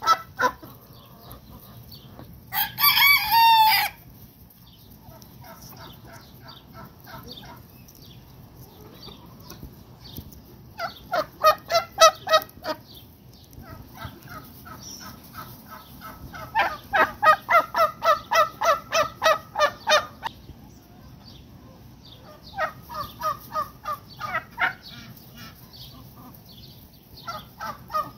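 Backyard chickens clucking in quick runs of repeated calls, about four a second, with one short, loud rooster crow about three seconds in.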